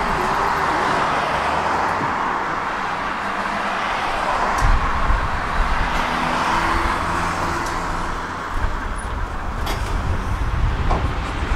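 Tram running along its track: steady rolling noise of steel wheels on rails over a low rumble, with a few sharp clicks and a faint motor whine that rises near the end. Road traffic passes alongside.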